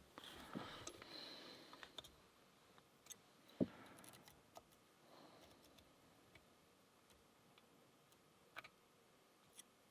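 Faint, scattered clicks and light scraping of a lock pick and tension tool working the pins inside a Burg-Wächter Karat padlock's cylinder. One louder short knock comes about three and a half seconds in.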